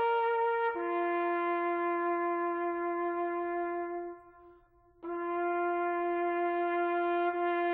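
Solo brass horn playing slow, long held notes. A short higher note drops to a low note that is held for about three seconds and fades out about four seconds in. After a brief break, the same low note sounds again.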